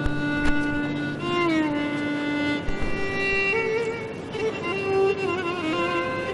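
Background score music: a slow violin melody of long held notes with slides between them. Two short soft knocks in the first half-second.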